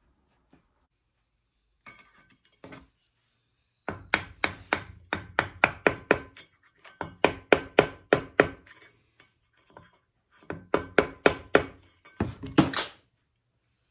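A mallet tapping a metal seal driver to seat a new valve stem seal onto a valve guide of a Ford E7 cylinder head. Two single knocks, then three runs of quick taps, about five a second, with a light metallic ring.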